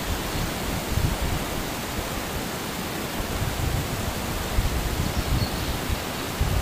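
The Bono tidal bore on the Kampar River breaking as a churning wall of turbulent water, giving a steady rushing sound with uneven low rumbles underneath.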